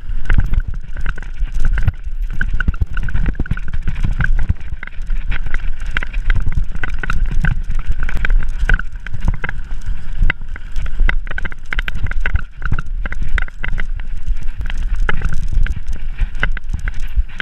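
Mountain bike riding fast down a rough dirt trail, heard from a camera on the rider: wind buffeting the microphone in a steady low rumble, with tyres on dirt and rocks and the bike rattling and knocking over the bumps.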